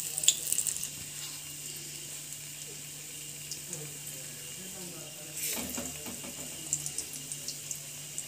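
Batter-coated potato slices (aloo bajji) deep-frying in hot oil in a steel kadai: a steady sizzle with scattered small crackles over a low hum, and a brief louder burst of noise about five and a half seconds in.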